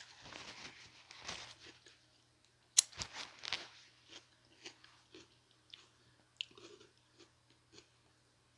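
A person chewing and biting food close to the microphone: wet, crunchy chewing with one sharp snap of a bite a little under three seconds in, then quieter, scattered chewing clicks.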